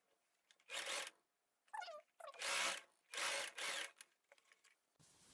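Cotton fabric being handled and pushed under a sewing machine's presser foot: four short bursts of rustling and scraping with a few faint clicks.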